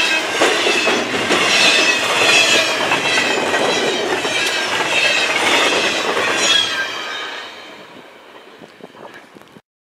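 Double-stack container cars of a long freight train passing at speed, the wheels clattering over the rail joints with a high squeal. About seven seconds in the last cars go by and the sound fades away quickly, then cuts off just before the end.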